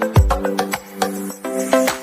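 Music with percussion hits and short pitched notes in a quick rhythm.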